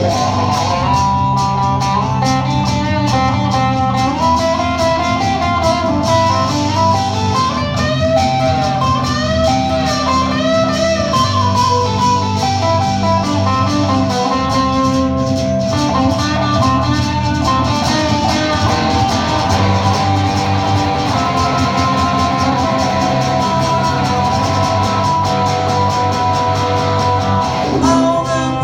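Live band instrumental break: a lead guitar plays a melody with bent, sliding notes over steady strummed guitar chords.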